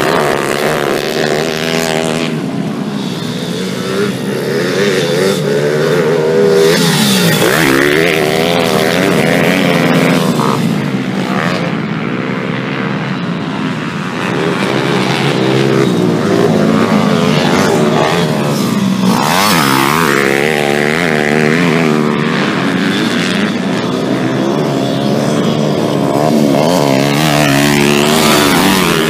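Several motocross motorcycle engines revving, their pitch repeatedly rising and falling as the bikes accelerate, shift and pass, overlapping one another.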